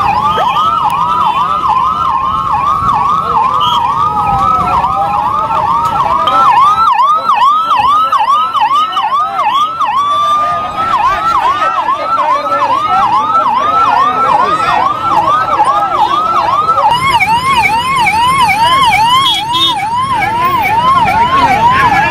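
Electronic ambulance sirens yelping, a fast repeating rising whoop a few times a second. A second, slower siren overlaps it for the first few seconds, the siren holds a steady tone briefly about ten seconds in, and a higher siren joins near the end.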